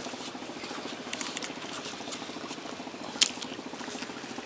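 Spinning fishing reel being handled, with a few light ticks about a second in and one sharp click a little after three seconds. Under it runs a steady low engine drone.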